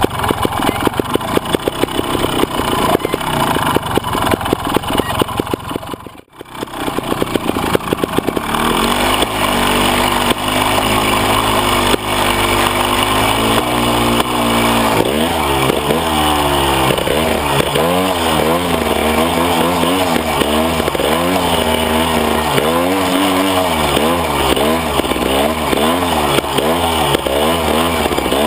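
Beta trials motorcycle engine, onboard: low-revving chugging for the first few seconds, a brief dropout about six seconds in, then the throttle worked up and down again and again as the bike picks its way through the section and climbs the bank.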